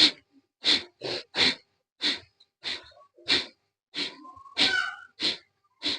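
Kapalbhati breathing: a person forcefully and rhythmically snorts short breaths out through the nose, about two sharp exhalations a second, with quiet passive inhalations between them.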